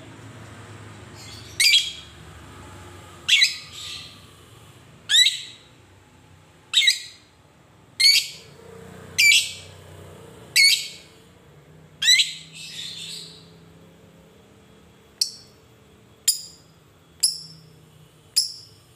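Caged Fischer's lovebird giving loud, shrill single calls, each a quick falling squawk, about one every second to second and a half. The last four, from about fifteen seconds in, are shorter and higher.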